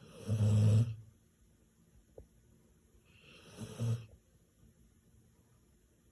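A dog snoring hard in its sleep: two snores, each just under a second long and about three seconds apart, the first louder.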